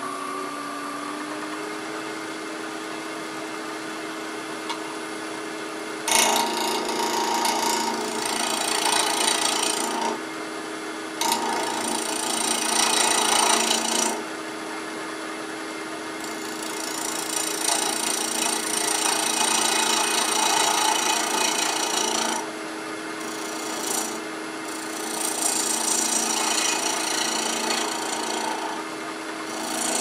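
Wood lathe motor running steadily at raised speed with an off-centre multi-axis spindle blank. A hand-held gouge cuts the spinning wood in about five passes of a few seconds each, with pauses of bare motor hum between them.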